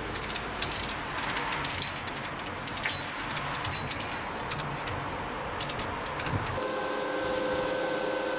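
A lever block (ratchet chain hoist) being worked by hand: a quick run of metallic ratchet clicks and chain jangling as it draws the spread side walls of a stainless dump body back in. About six and a half seconds in the clicking stops and a steady hum takes over.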